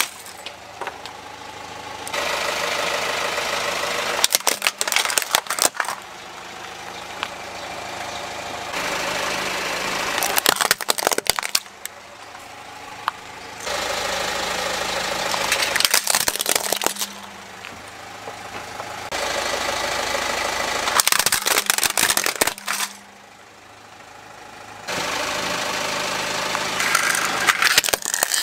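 A car creeping forward with its engine running, its tyre rolling onto toys and crushing them one after another. Each crush is a burst of sharp cracking and crunching as the plastic and die-cast toys break under the wheel, about five times over, with steadier engine and tyre noise in between.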